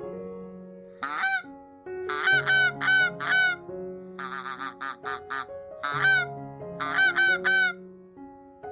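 Waterfowl calling in repeated loud honks, in clusters of several with a quick run of shorter calls in the middle, over soft piano music.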